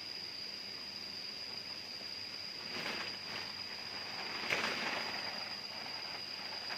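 Steady high-pitched drone of jungle insects, with two bouts of rustling about three seconds and four and a half seconds in.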